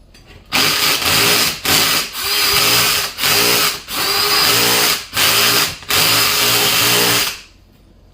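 Electric drill boring into drywall, run in about seven short bursts with brief dips between them, then stopping. The bit is slow going through what turns out to be a double layer of drywall.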